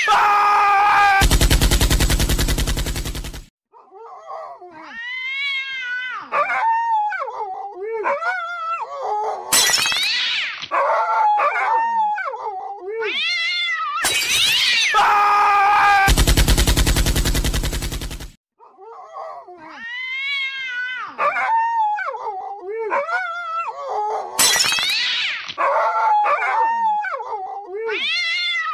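Cats meowing and yowling in long calls that slide up and down in pitch, broken by a harsh buzzing stretch of about two seconds. The whole sequence repeats about every fifteen seconds, as a looped recording does.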